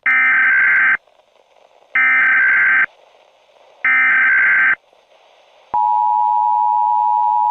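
Emergency Alert System header: three bursts of warbling digital data noise, each about a second long with a second's gap between them. After a short pause, the EAS two-tone attention signal starts near the end, a steady loud beep.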